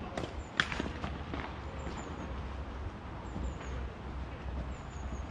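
A tennis racket strikes the ball with a sharp crack about half a second in, with a few fainter knocks of ball and rackets around it. A steady low rumble runs underneath, with small high chirps repeating faintly.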